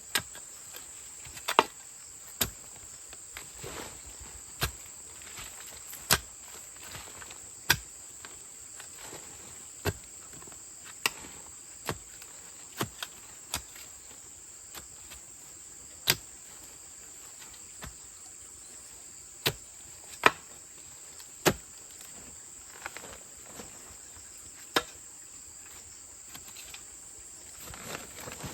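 A digging tool chopping into soil and roots to dig out banana suckers, with single sharp strikes at irregular intervals of about one to two seconds. A steady, high-pitched chorus of crickets or other insects runs beneath.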